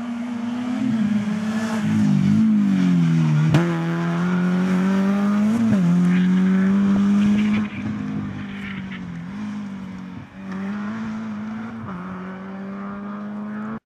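Renault Clio RS rally car's engine at full throttle on a stage. The pitch climbs and then drops sharply at each gear change, several times over. It is louder in the first half and somewhat quieter after a little past halfway.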